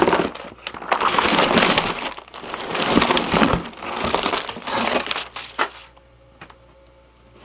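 A box of fishing tackle being dumped onto a table: clear plastic utility trays and bagged soft-plastic baits slide out of a cardboard box and clatter down amid plastic rustling for about five seconds. A few light clicks follow.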